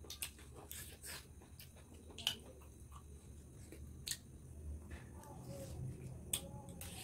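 Sounds of people eating by hand: chewing and lip smacks heard as sharp clicks scattered about once a second, with soft handling of food on metal plates.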